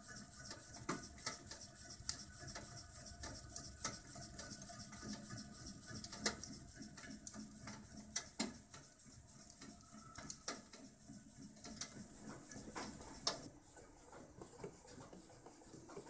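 Small Stirling engine stove fan running: a steady mechanical whirr with a high hiss, and scattered sharp clicks. After about 13 s the hiss pulses evenly, about twice a second.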